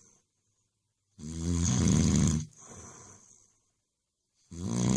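Snoring: one long, deep snore starting about a second in, followed by a faint breath out, and the next snore starting near the end.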